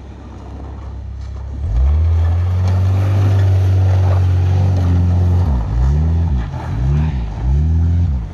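Suzuki Escudo's engine working hard off-road: rising from a low rumble, then revved high and held for a few seconds, then blipped up and down several times in quick succession.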